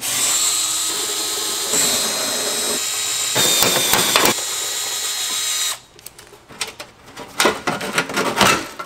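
A small cordless power driver runs for about six seconds, spinning out the 10 mm bolts of an underbody heat shield. It makes a steady motor whine whose pitch and level shift twice as it works, then stops. Scattered light clicks and knocks follow.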